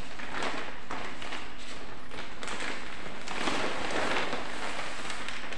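Rustling and crinkling of a shopping bag as it is handled and a folded saree is pulled out of it, in several louder swells.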